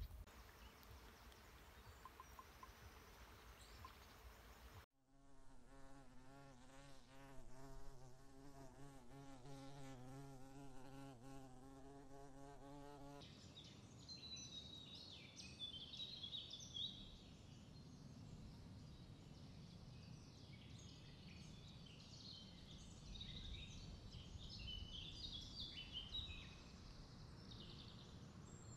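A flying insect buzzing close by with a wavering pitch for about eight seconds. It is followed by small birds chirping and singing over a low rumble of wind noise. Before the buzzing, a few seconds of faint wind noise cut off suddenly.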